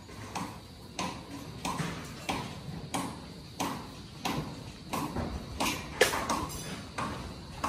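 A steady series of sharp knocks, about three every two seconds, with the loudest about six seconds in.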